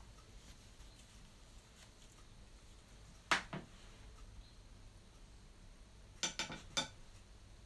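Light clicks of painting tools knocking on a hard surface: two about a third of the way in, then a quick run of three or four near the end, over faint room hiss.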